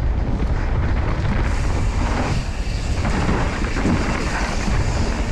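Wind rushing over an action camera's microphone mixed with mountain bike tyres rolling fast over a packed-dirt trail: a loud, steady low rumble.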